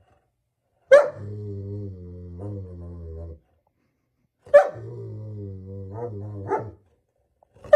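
German shepherd barking at its own reflection: three sharp barks, about a second in, midway and at the very end, each running into a long low growl of about two seconds.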